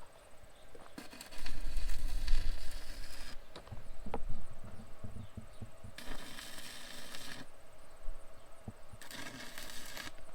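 Stick welding arc crackling in three runs of a couple of seconds each, with short pauses between. The heat is run into a washer welded onto a twisted-off bolt stub to free the seized bolt.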